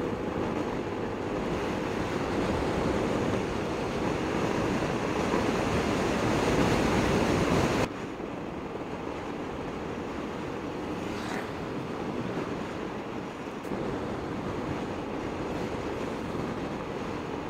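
Wind rushing over the microphone with road noise, riding a Piaggio Medley 125 scooter at speed. The rush grows louder, then drops suddenly to a quieter, steady level about eight seconds in.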